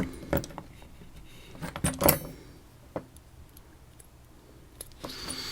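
Small metal parts of a disassembled padlock clicking and clinking as they are handled: a few sharp ticks, the loudest about two seconds in.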